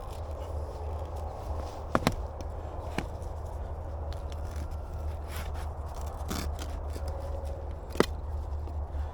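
A knife cutting into a tough sugarcane stalk: scraping and sawing, with sharp cracks (two close together about two seconds in, another a second later, and one near the end), over a steady low rumble.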